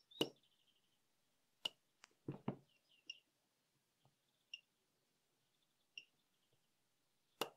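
Small PCB battery spot welder firing single pulses through 0.1 mm nickel strip onto an 18650 cell: a series of sharp, irregular snaps as the probes touch and weld, with three short high beeps from the board's speaker in the middle.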